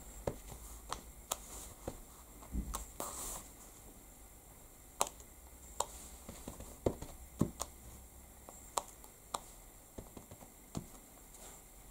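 Light, irregular taps and clicks of a clear acrylic stamp block being dabbed onto an ink pad and pressed onto paper.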